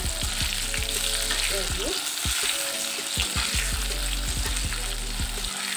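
Potato chunks sizzling as they fry in hot mustard oil in a kadai, with repeated clicks and scrapes of a perforated metal spatula turning them against the pan.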